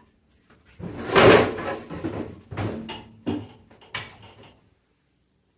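A wooden cabinet frame is handled and test-fitted over a boxed microwave. About a second in there is a rough scrape, then several sharp wooden knocks over the next few seconds.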